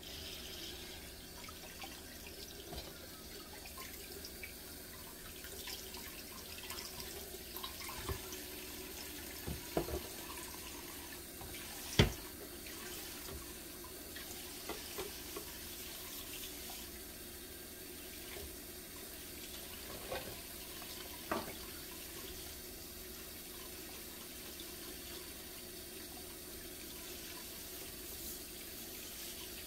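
Kitchen tap running steadily into a sink, with a few clunks of things knocked about in the sink, the loudest about twelve seconds in.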